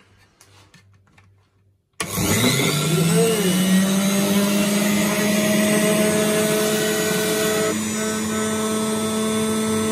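A Philips juicer's rebuilt 220 V DC brushed motor switches on about two seconds in, spinning up quickly with a rising whine and then running steadily at full speed with no load. This is the test run after the motor repair. Before it starts there are only faint handling clicks.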